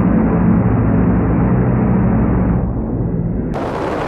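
A loud vehicle engine running with a steady low pulsing. It cuts off abruptly about three and a half seconds in, giving way to a broad rushing noise.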